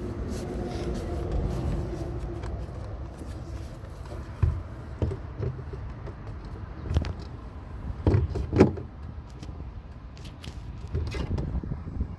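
A few sharp knocks and clunks of hands fitting a towing mirror and its mount onto a truck door, the loudest pair about eight seconds in, over a steady low rumble.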